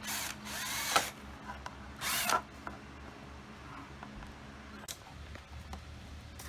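Cordless drill spinning up and cutting a hole through a thin plastic cover, in two short bursts: one about a second long at the start and a shorter one about two seconds in.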